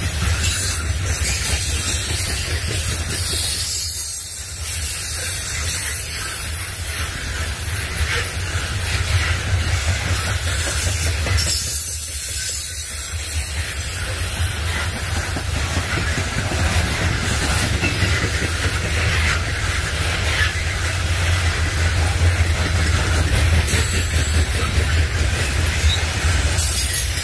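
Freight train rolling past at a steady pace: a continuous low rumble of wheels on rail with a hiss over it.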